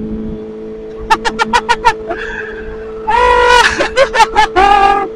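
The rider laughing in short bursts: a quick run of 'ha-ha-ha' about a second in, then louder, higher laughs near the end. Under the laughing is the steady drone of a Kawasaki ZX-25R's inline-four engine holding a constant cruise.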